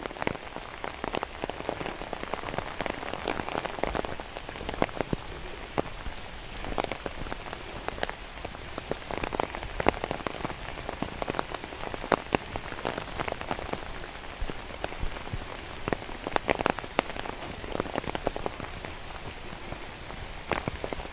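Rain falling on an umbrella overhead: a steady hiss with frequent sharp drop hits.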